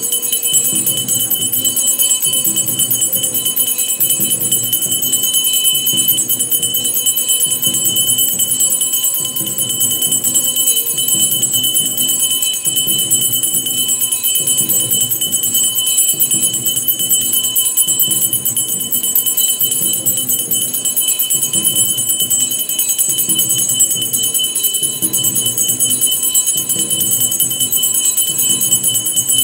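Bells ringing without a break for the aarti, over a steady beat.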